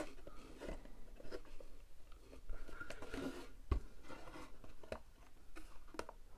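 Small plastic-and-card diorama panels being handled and pressed together: faint scattered clicks and crackly rustles, with one sharper click a little under four seconds in.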